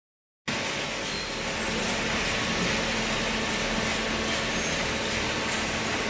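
Hydraulic cardboard baler running, a steady machine noise with a low hum that starts suddenly about half a second in.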